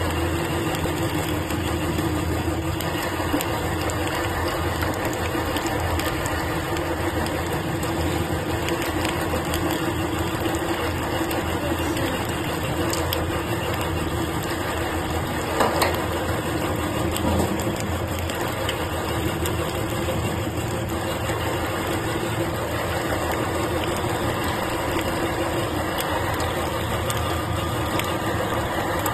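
Stainless-steel electric meat grinder running steadily under load, its motor giving a continuous hum as raw meat is forced through the grinding plate, with a brief louder clatter about halfway through.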